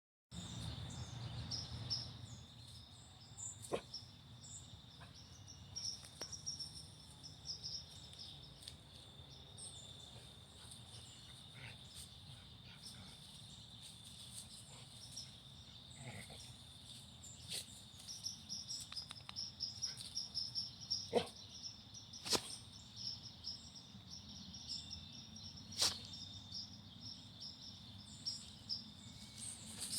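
Faint, steady high-pitched chorus of night insects, with a scattering of sharp clicks and taps.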